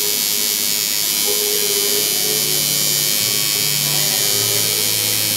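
Tattoo machine buzzing steadily as its needle works into the skin.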